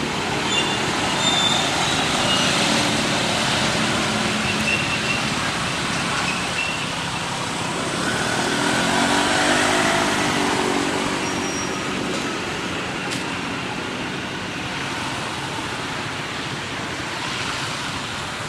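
Steady road traffic noise with a motor vehicle passing, loudest about nine or ten seconds in.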